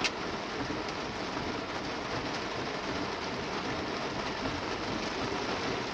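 Heavy rain falling on a car, heard from inside the cabin as a steady, even hiss, with a single short click at the very start.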